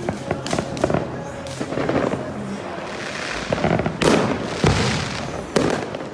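Fireworks going off: a string of sharp bangs and crackling, with heavier blasts about two-thirds of the way through and again near the end.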